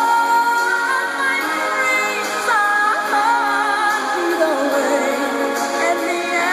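Background music: a song with a singer holding long, wavering notes over the accompaniment.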